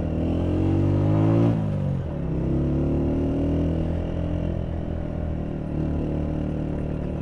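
Motorcycle engine running under way, its pitch rising for the first second and a half, then dropping sharply and holding fairly steady for the rest.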